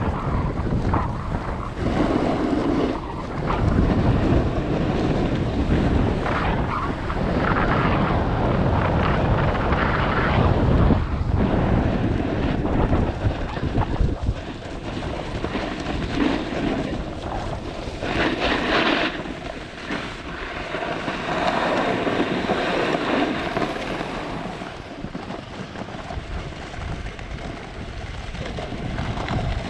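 Wind rushing over the camera microphone while a snowboard slides and scrapes over groomed snow, rising and falling in loudness with the rider's speed and turns.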